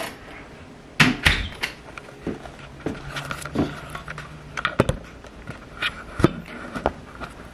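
Irregular knocks and clicks of objects being handled, the sharpest about a second in and a couple more around five and six seconds in, with a faint low hum for a couple of seconds in the middle.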